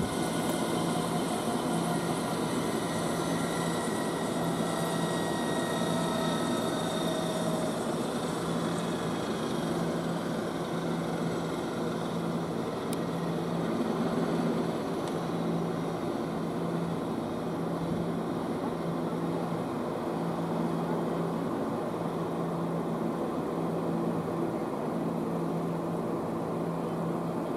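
Aircraft turbine engine running, its whining tones falling slowly in pitch over the first several seconds as it spools down, over a steady low hum.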